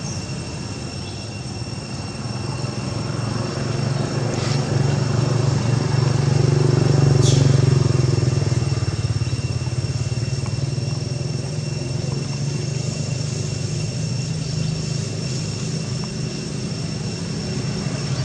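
Low motor drone of a vehicle engine that swells to its loudest about seven seconds in and then holds steady, over a steady high-pitched tone. A brief falling squeak sounds about seven seconds in.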